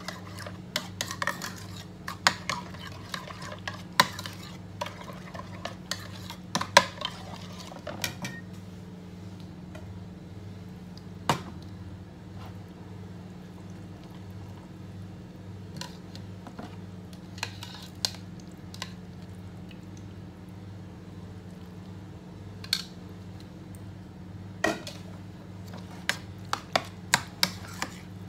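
Metal spoon stirring yogurt in a ceramic bowl, clinking and scraping against the bowl in quick runs for the first several seconds and again near the end, with only occasional single clinks in between. A steady low hum runs underneath.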